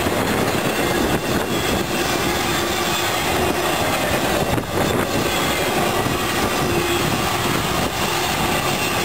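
Intermodal freight train's flatcars loaded with truck trailers rolling past on the rails: a steady, unbroken noise of steel wheels on track.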